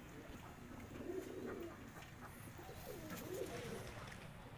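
Domestic fancy pigeons cooing, several low rolling coos one after another.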